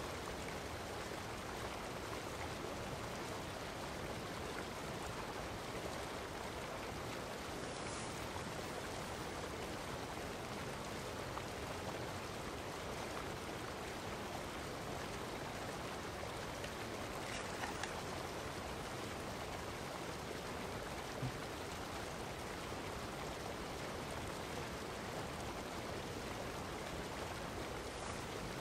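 Steady rushing noise of running water, with a few faint clicks around the middle.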